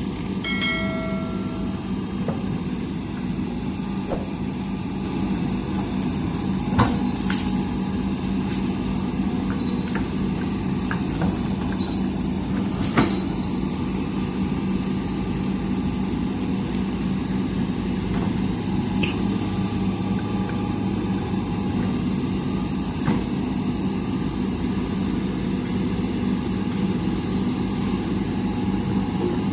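Hitachi excavator's diesel engine running steadily, with a few sharp knocks from the machine working.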